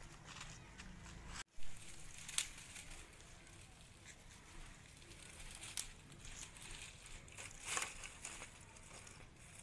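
Dry kindling rustling and crackling as it is handled and gathered for a fire, in a few sharp crinkles over a faint background. The sound cuts out completely for a moment about one and a half seconds in.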